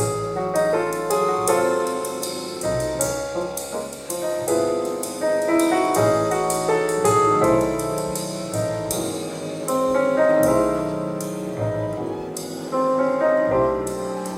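Recorded piano music with a bass line, played back over an Audio Tekne hi-fi system of amplifiers and loudspeakers in a demo room.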